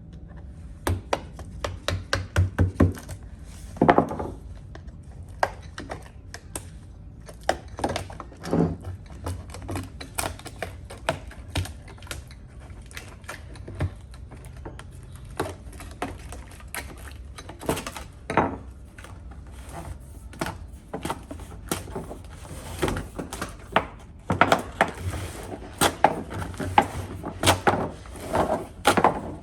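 Irregular knocks, taps and clatter of hard objects being handled on wood, some coming in quick runs of several knocks.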